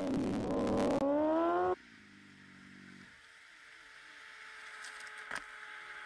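Motorcycle engine revving, rising in pitch and cutting off abruptly after about a second and a half over the tail of music. A faint steady hum follows, with one click.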